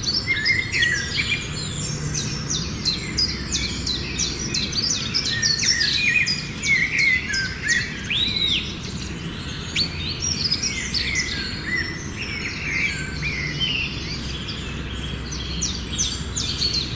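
A flock of small birds chirping and calling over one another: a dense, continuous chorus of short, quick chirps and whistles, over a steady low rumble.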